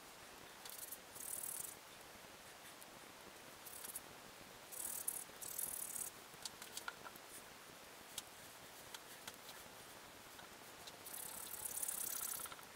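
Hands palm-rolling a dreadlock, the hair rubbing between the palms in several short spells of soft, hissy rubbing, the longest near the end. A few light clicks in between.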